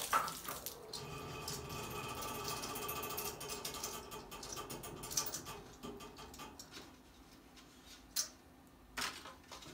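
New 3/4-inch boiler pressure relief valve being screwed by hand into its threaded fitting: a steady fine mechanical rasp of the threads turning for several seconds, fading out. Two sharp knocks come near the end.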